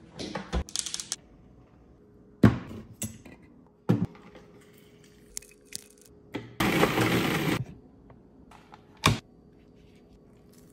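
Kitchen food-prep sounds: a series of separate sharp knocks and clicks on a counter, with a harsh noisy burst lasting about a second just past the middle.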